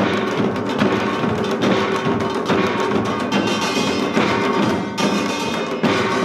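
Korean samul nori ensemble playing a Yeongnam-style rhythm. Many janggu hourglass drums are struck in a dense, driving beat, with metal gongs ringing over them throughout.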